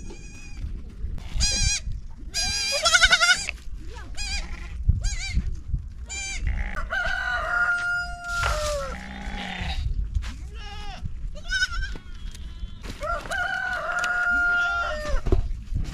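Goats bleating again and again in short, wavering calls, with a rooster crowing twice: a long held call about seven seconds in and another near the end.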